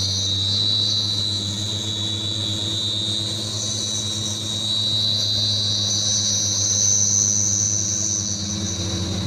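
A truck engine running steadily at low revs, with a steady high-pitched tone over it.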